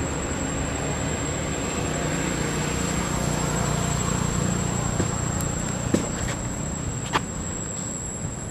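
Steady outdoor background noise: a low rumble and hiss under a thin, steady high whine, with two short clicks about six and seven seconds in.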